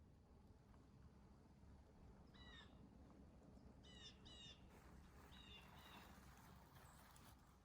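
A bird giving faint short calls, about five in three small groups.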